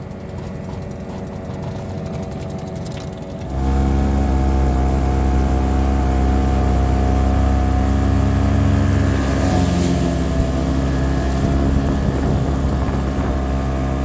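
Outboard motor on an inflatable dinghy running steadily, heard from across the water. About three and a half seconds in it is replaced by a much louder outboard close by, running steadily at speed.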